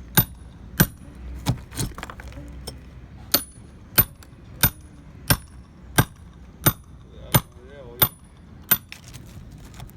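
Hammer blows struck upward into a cracked concrete ceiling slab, about a dozen sharp strikes at a steady pace of roughly one every two-thirds of a second, each with a short metallic ring, and a brief pause about two seconds in. The whole slab is shifting under the blows, a sign that the cracked section has come loose.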